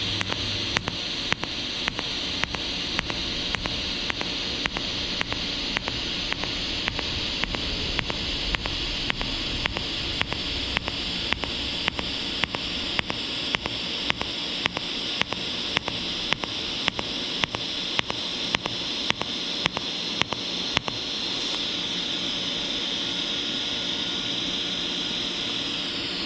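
Pulsed TIG welding arc on thin stainless steel exhaust tubing, fused without filler rod: a steady hiss with an even click about twice a second from the pulser. The pulsing stops about 21 seconds in and the arc hisses on steadily until near the end.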